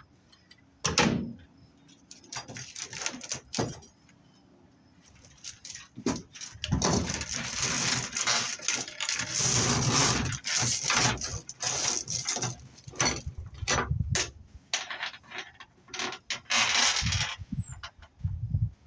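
Metal-armored BX cable being handled and worked: a couple of sharp knocks, then a long stretch of clattering, scraping metal.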